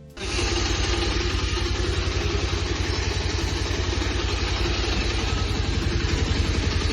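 Motorcycle engine idling steadily, with a fast, even pulsing beat. It cuts in suddenly right at the start.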